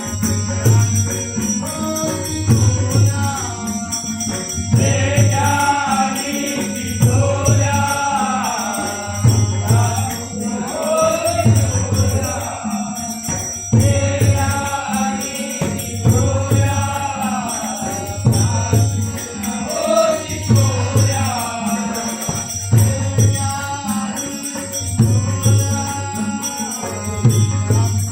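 A Marathi abhang sung as a devotional bhajan, the singer's melody bending and holding over a regular low drum beat and jingling hand cymbals.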